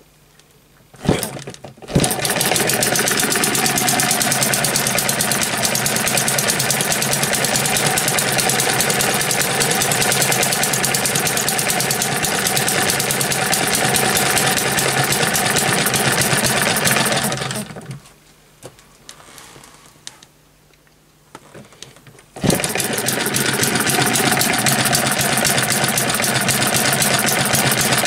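Model hit-and-miss gas engine starting up about two seconds in and running with a fast, even clatter while belt-driving a small 12-volt DC motor as a generator. A little after halfway it dies away to quiet for about four seconds, then picks up again and runs on.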